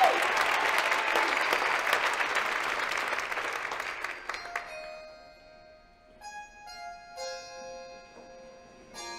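Audience applause fading out over the first four seconds, then a few soft single keyboard notes ringing out one at a time, about a second apart.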